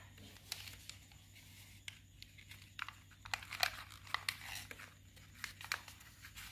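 Sheets of lined notebook paper rustling and crinkling as hands sort and fold them to wrap calamansi, with scattered sharp crackles that come thickest about halfway through, over a faint low hum.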